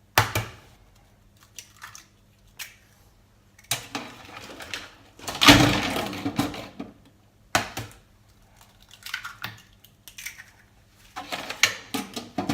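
Eggs cracked against the edge of a container of hot water for poaching, with shell and crockery taps and knocks; the loudest clatter comes about five and a half seconds in, and a quick run of taps comes near the end.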